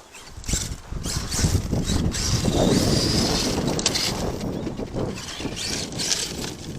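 Arrma Kraton 8S electric RC monster truck driving over dirt and gravel: a gritty rush of tyres and stones with motor noise, starting about half a second in and holding steady.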